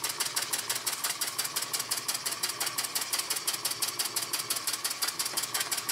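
Miller toy steam engine in its horizontal configuration, running freely off its electric Bakelite boiler: a fast, even ticking beat of about eight strokes a second.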